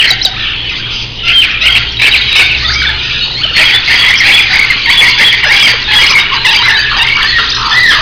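Many caged pet birds, budgerigars among them, chirping and squawking over one another in a dense, unbroken chatter.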